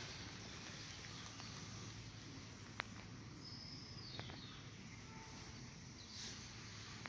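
Quiet woodland ambience with a faint steady low hum. A bird gives a short falling whistle about halfway through, and a few sharp clicks sound, the loudest about three seconds in.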